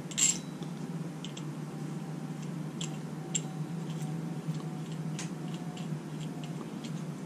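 Scattered light clicks and handling noises from putting thread locker on a bolt's threads, the sharpest just after the start, over a steady low hum.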